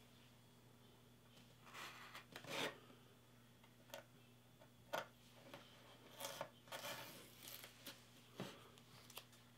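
Faint scraping of a craft knife blade cutting painter's tape on a wooden board, with a few light clicks and taps in between.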